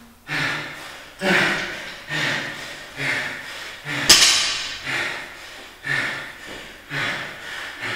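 A man breathing hard after barbell lifts, one heavy breath about every second. About four seconds in there is a single sharp clack as the loaded barbell meets the floor.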